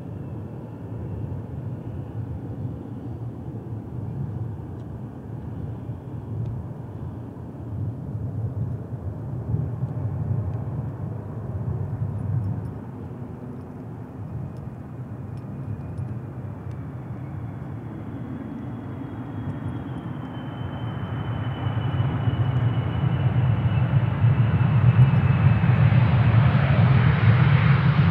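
Jet airliner engines: a deep rumble with a faint high whine, growing steadily louder over the last third as the aircraft comes closer.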